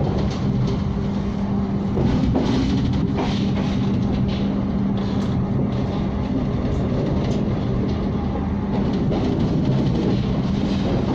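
Passenger train running at speed, heard from inside a stainless-steel executive-class carriage: a steady rumble with a constant hum and irregular clacks of the wheels on the rails.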